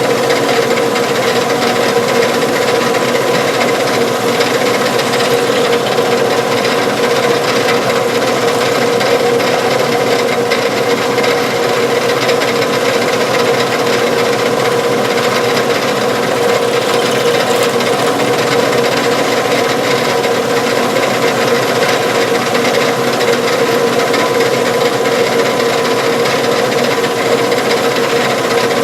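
Metal lathe running steadily while cutting a small steel hinge piece: a steady motor and spindle hum under a continuous scraping cut.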